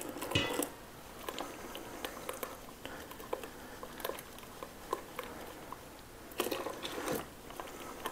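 Spatula stirring egg yolks in a stainless steel bowl, with small irregular taps and scrapes against the bowl, as hot milk is poured in slowly to temper the eggs. A louder stretch of scraping comes about six and a half seconds in.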